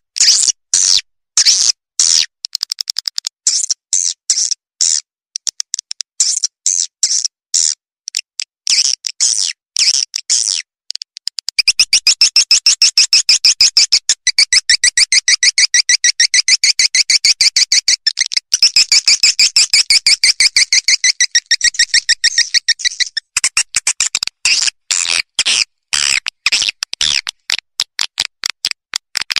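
Swiftlet calls played as a lure for swiftlet farming: rapid, sharp chirps repeated several times a second. Through the middle third they run together into a dense, unbroken chattering trill, then the quick separate chirps return.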